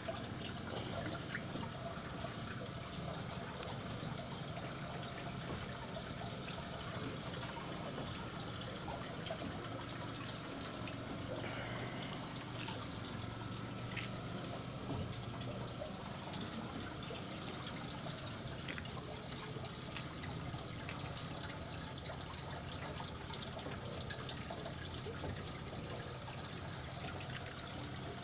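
Water trickling and splashing steadily into a plastic fish tank from an inflow pipe, with one sharp click a few seconds in.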